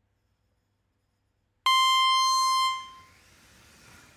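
Race-start signal from the timing system: one long electronic beep, higher than the countdown beeps before it. It starts about 1.7 s in, holds for about a second and then fades away, leaving a faint hiss.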